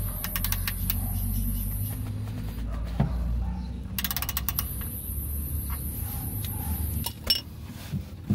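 Socket ratchet clicking in short runs as it is swung back on an oil pan drain bolt being loosened counterclockwise, with a knock about three seconds in. Under it runs a steady low rumble, with a thin high hiss in two stretches.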